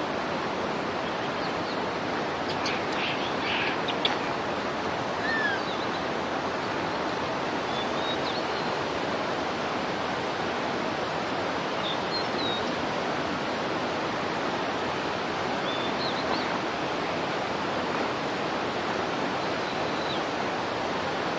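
Steady rush of running water, like a stream, with faint short high chirps scattered over it, including a falling one about five seconds in.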